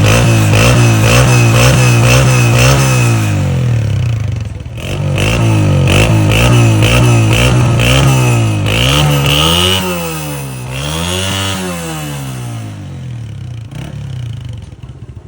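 Motorcycle engine revved in quick repeated blips, then run up and down in pitch twice more slowly, before easing off and fading.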